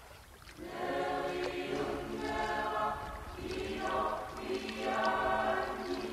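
A choir singing held chords in two slow, swelling phrases, the first starting about half a second in and the second a little past the middle.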